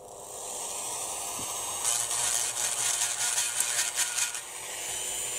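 Dremel rotary tool running and grinding at the press-fit pin of the rear wiper on a diecast model car body. It runs steadily, grows louder and rougher about two seconds in as the bit bites, and cuts off near the end.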